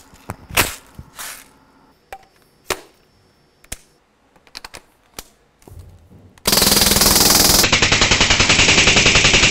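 A few sharp clicks and clacks of the gun and magazine being handled. Then, about two-thirds of the way in, a Crosman ST1 CO2 BB rifle fires full-auto in one long, rapid, continuous burst that runs on to the end.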